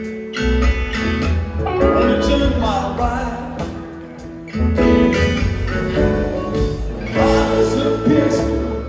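Live rock band playing a song, with a heavy bass line, guitars and keyboards, and singing over it.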